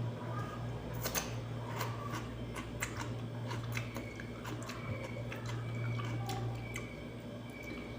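Someone biting and chewing raw cucumber: irregular crisp crunches and clicks, over a steady low hum.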